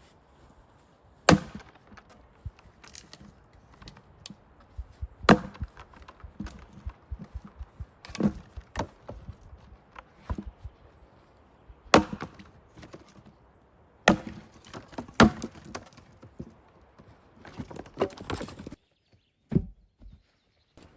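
Fiskars splitting axe striking plum wood: about five heavy blows spaced several seconds apart, with lighter knocks and clatter of wood between them.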